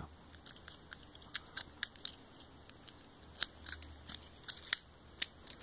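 Commando Peacemaker padlock being handled, with small, sharp metallic clicks at irregular intervals.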